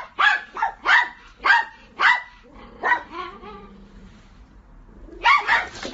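Dog barking: about five sharp barks roughly half a second apart, a short pause, then a rapid flurry of barks near the end.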